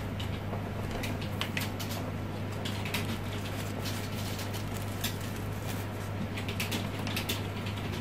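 Crepe paper crinkling and crackling in irregular small clicks as it is pressed and wrapped by hand, over a steady low hum.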